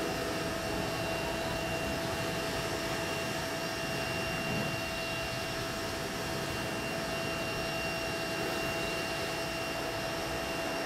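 Pressure washer running steadily while its wand sprays water into a car's engine bay: a continuous hiss with a faint steady tone in it.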